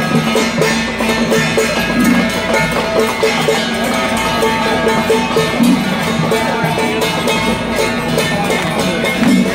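Temple-procession percussion playing without a break: drums with ringing metal gongs and cymbals, hits repeating several times a second, and a deeper swell every few seconds.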